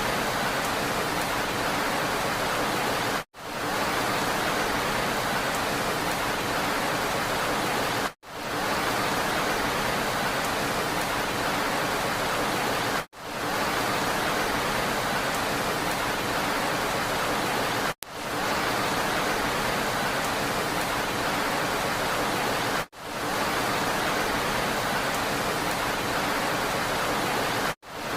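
Steady, even hiss of rain, a short loop repeated: about every five seconds it cuts out for an instant and fades back in.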